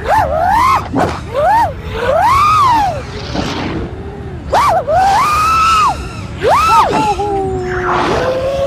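FPV freestyle quadcopter's motors and propellers whining. The pitch swoops up and down again and again with each throttle punch and dive, holds steadier for a moment near the end, and is broken by a few short crackles.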